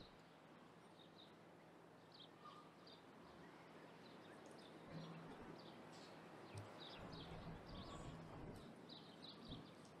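Faint outdoor ambience with small birds chirping: many short, high chirps, busier in the second half, and a few soft low thumps.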